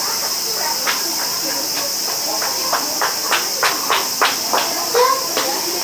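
Steady high-pitched chirring of an insect chorus, with a run of sharp taps, about three a second, through the middle.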